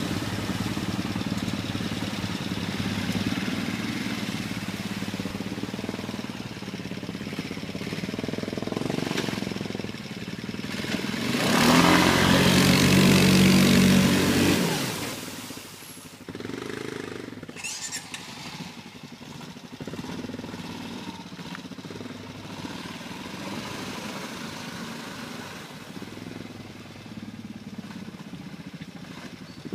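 Stels ATV 800 quad bike engine running as it wades through a river, with water splashing. About twelve seconds in it revs loudest up close with a rush of spray for a few seconds, then drops to a quieter, more distant engine before rising again near the end.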